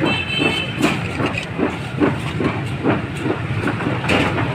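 Steady hiss of fries frying in a street stall's deep-fryer oil over traffic noise, with a quick run of soft knocks or rustles, about three a second, in the first few seconds.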